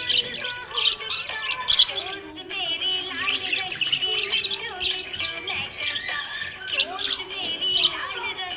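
Budgerigars chirping and warbling without pause, a fast jumble of overlapping high calls.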